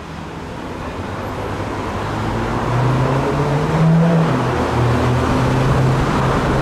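Road traffic running steadily, growing louder over the first few seconds as a vehicle's low engine hum comes up beneath it.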